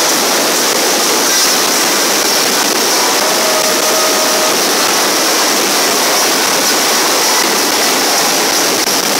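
Fireworks display: a continuous dense crackle and hiss of bursting shells, steady in level, with no single bang standing out.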